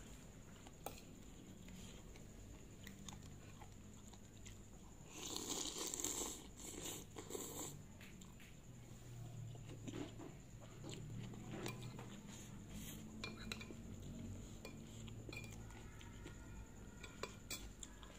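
Close-up eating sounds of chicken noodles: a metal fork and spoon clinking and scraping on a plate, with chewing. About five seconds in there is a louder noisy rush lasting about three seconds, likely slurping or blowing on the noodles, and scattered light clicks throughout.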